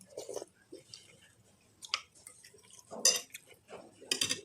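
Eating utensils clinking and scraping against a bowl of noodle soup, a few separate strokes with the loudest about three seconds in.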